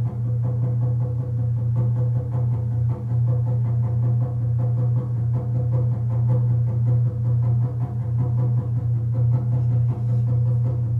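Fast, steady ritual drumming for a shamanic journey: a continuous rapid beat over a deep, unbroken booming resonance.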